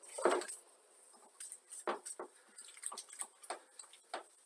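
Marker pen writing on a whiteboard: a run of short, irregular scratches and taps as the strokes are drawn.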